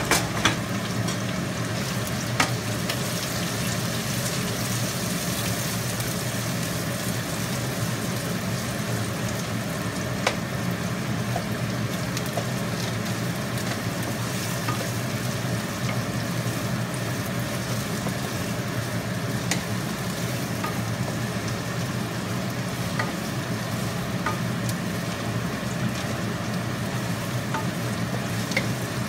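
Chopped onion sizzling steadily in hot oil in a nonstick frying pan while it is stirred with a wooden spatula, with a few sharp clicks of the spatula against the pan. A steady low hum runs underneath.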